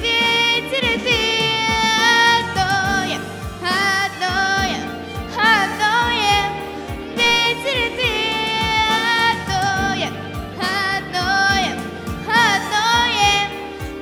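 A girl singing into a handheld microphone over backing music with a steady beat, holding long notes that waver up and down.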